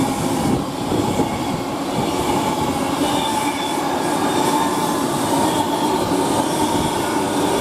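Avanti West Coast Class 390 Pendolino electric train running through the station: a steady, loud rush of wheels on rail with a faint steady tone over it.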